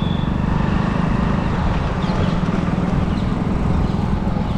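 Steady engine drone of a motorbike being ridden at an even pace, with wind rushing over the microphone.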